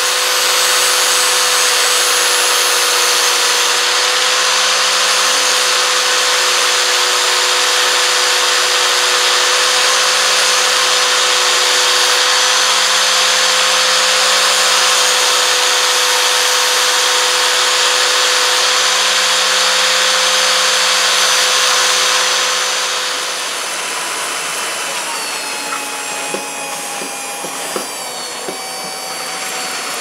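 Small angle grinder running steadily with a sanding disc against a steel knife blade. About 23 seconds in, it gives way to a quieter cordless drill spinning a sanding drum on the blade, its pitch sliding down as the speed changes.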